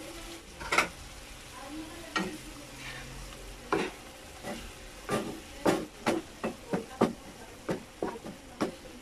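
Wooden spatula stirring squid and sauce in a wok, scraping and knocking against the metal pan in short strokes. The strokes are few at first and come about twice a second in the second half, over a steady sizzle from the simmering pan.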